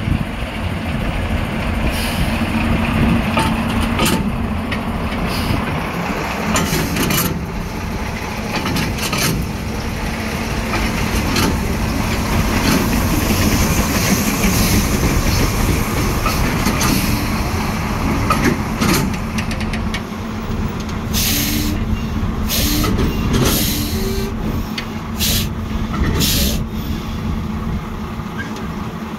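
Sentinel 0-6-0 diesel-hydraulic shunter's engine running steadily while shunting, with occasional knocks from the stock. A series of short hisses of air, typical of air brakes, comes in the last third.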